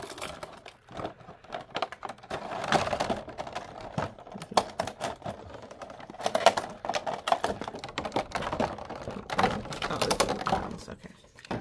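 Thin clear plastic storage trays clicking and clattering against each other and the plastic shelving as they are handled, in several spells of quick, sharp clicks.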